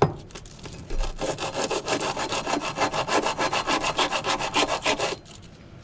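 Sandpaper rubbed by hand in fast back-and-forth strokes over a steel pipe wrench, about seven strokes a second for some four seconds, then stopping near the end. A sharp knock comes at the very start.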